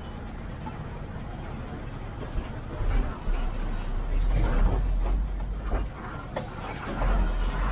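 Inside the cabin of a moving TNSTC bus: engine and road noise, a low rumble that swells from about three seconds in and again near the end, with a few short knocks.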